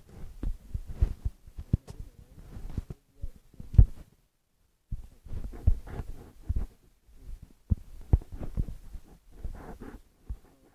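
Handling noise on a phone's microphone: irregular low thumps, knocks and rubbing as the phone is held and tapped while drawing. The sound cuts out completely for about a second around four seconds in.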